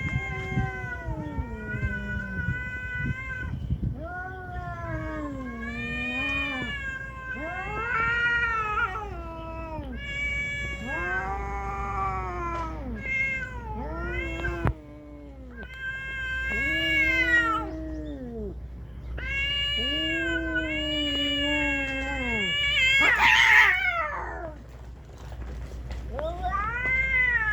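Domestic cats caterwauling in a fight standoff: long, drawn-out yowls that waver up and down in pitch, one after another with barely a break. About 23 seconds in comes a sudden harsh, noisy cry, the loudest moment.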